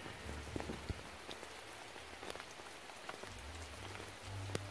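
Steady rain falling, with individual drops ticking sharply close by.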